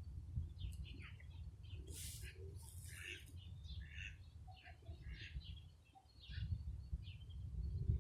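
Small songbirds chirping in many quick, short high notes, with two brighter, hissier bursts about two and three seconds in. A low rumble runs underneath and grows louder near the end.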